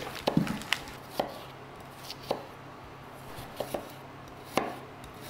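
Chef's knife slicing an onion on a wooden cutting board. The blade knocks against the board in irregular strokes, several close together in the first second, then spaced out.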